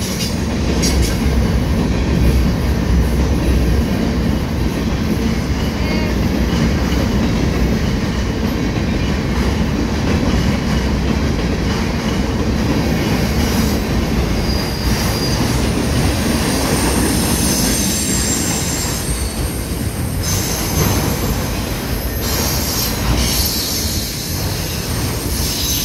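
Freight train rolling past: a steady rumble of wheels on rail, with thin high-pitched wheel squeal that comes and goes, stronger in the second half.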